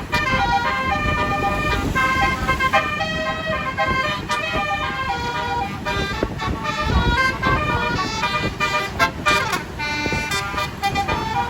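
Bus telolet horn, a Basuri 36-note multi-tone horn, playing a fast melody of short stepping notes, with a steady low noise underneath.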